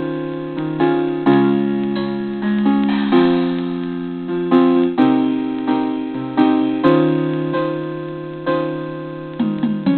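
Instrumental music of slow struck chords, a new chord every second or so, each ringing and fading before the next.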